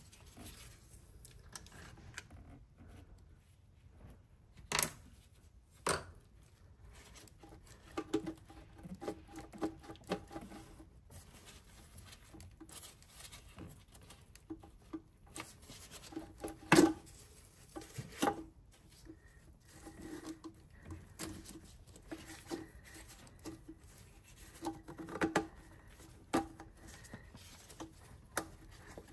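Irregular clicks, taps and knocks of hand tools and engine parts being handled while Torx screws are undone to free a coolant flange under the intake manifold. The loudest is a single sharp knock about two thirds of the way through.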